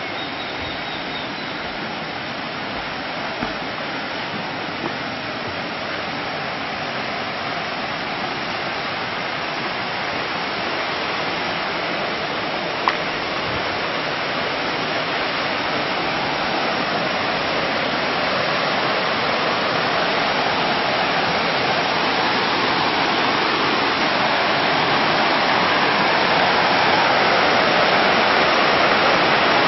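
Water pouring from artificial rock waterfalls into a swimming pool: a steady rushing that grows gradually louder, with a single brief click about halfway through.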